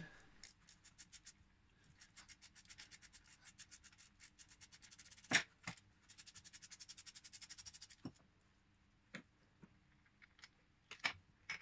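Socket ratchet clicking in quick, even runs while undoing the timing-belt idler pulley bolt, which takes tension off the belt. A sharp metal knock about halfway through and a few scattered clicks near the end.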